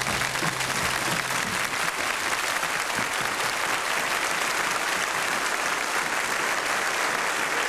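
Studio audience applauding, a dense steady clapping. A low held tone trails under it and stops about a second and a half in.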